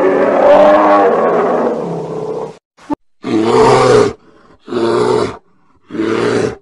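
Bear roaring: one long roar, then three shorter roars about half a second apart, with a brief click before the first of them.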